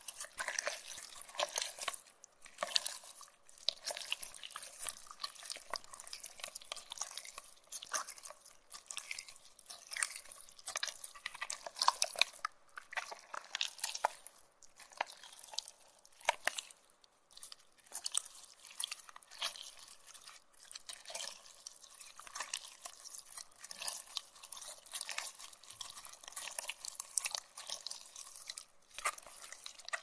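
Pink slime with foam beads being pressed and pulled between fingers: an irregular stream of small wet, sticky clicks and pops.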